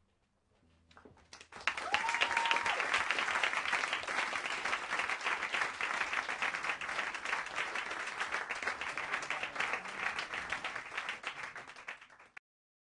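Audience applauding, starting about a second and a half in, with a brief rising whistle near the start; the applause cuts off abruptly near the end.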